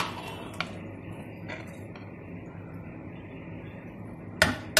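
Steel ladle clinking against the side of a metal pan of simmering fish curry: a sharp clink at the start, a lighter one about half a second later, and two more close together near the end, over a steady low background noise.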